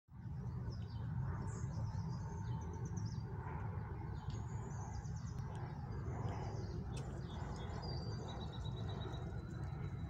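Wild songbirds calling in the background: quick runs of high falling chirps, then a fast trill of repeated notes near the end, over a steady low rumble.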